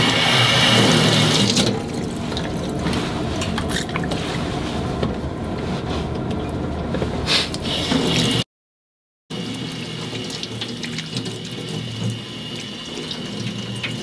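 Tap water running into a stainless steel kitchen sink and splashing over hands and a pot. The flow is brightest at the start and eases a little about two seconds in. The sound cuts out completely for under a second just past the middle.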